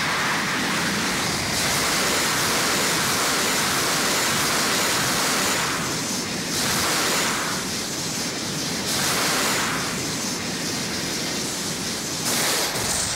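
Pachinko machine reach-effect sound: a loud, steady rushing roar like wind or surf, with brighter hissing surges every few seconds.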